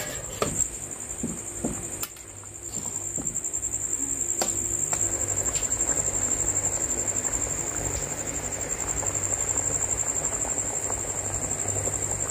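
Curry bubbling at a full boil in an aluminium kadai, a fast, steady blubbering that grows louder a few seconds in. There are a few metal clinks at the start as the lid is taken off. Crickets chirp steadily throughout in a high, continuous trill.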